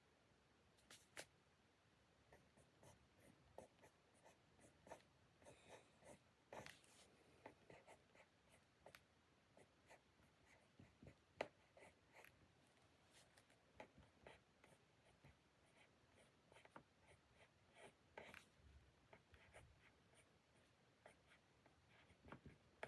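Faint writing on paper at a desk: irregular short pen scratches and light taps, with one sharper click about halfway through.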